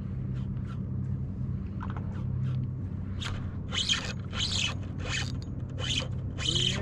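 Fishing reel zipping in short repeated strokes, about two a second, from about three seconds in, over a steady low hum.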